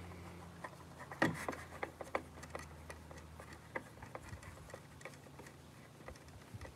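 Irregular light clicks and taps of a screwdriver working at a small hand-held plastic device, over a low hum that stops about a second in.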